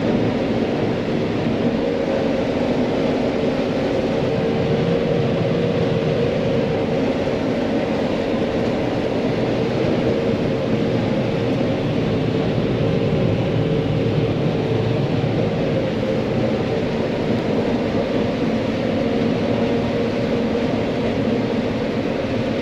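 Farm vehicle engine running steadily with an even drone, holding the same pitch with no revving or changes.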